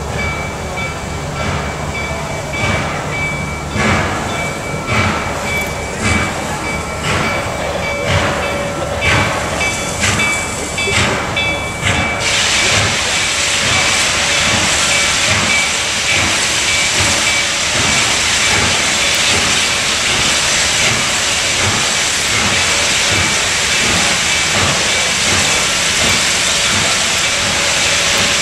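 Reading T-1 4-8-4 steam locomotive No. 2102 working a heavy hopper train away, its exhaust beating about once a second and quickening, with its bell ringing. About twelve seconds in, a loud steady hiss of steam starts and drowns the bell, while the exhaust beats carry on underneath.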